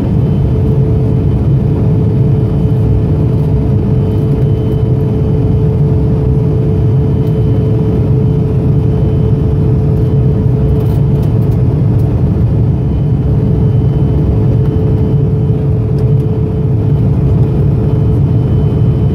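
Steady cabin noise of an Embraer E175 climbing after takeoff: its General Electric CF34-8E turbofan engines and the rushing air make a loud, even low rumble, with one steady hum held above it.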